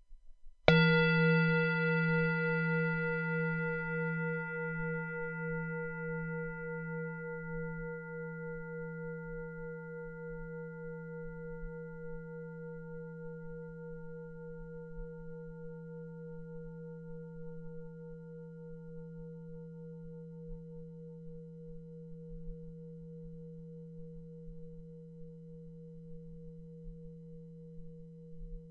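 Singing bowl struck once about a second in and left to ring. The bright upper overtones die away within a few seconds, while a low hum and its next tone ring on with a slow pulsing waver, fading gradually.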